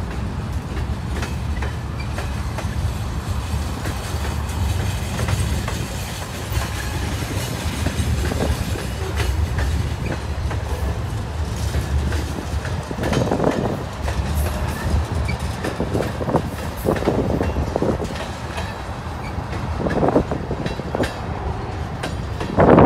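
Freight train cars rolling past: covered hoppers, a boxcar, then tank cars. Their wheels make a steady low rumble on the rail, with clickety-clack knocks coming more often in the second half.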